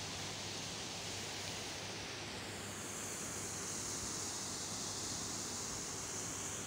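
Steady rush of flowing water below the dam's power house, a constant hiss that grows brighter midway, over a faint steady low hum.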